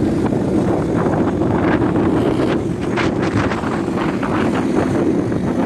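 A vehicle's engine running steadily while driving, with wind buffeting the microphone. A run of short rattles comes about halfway through.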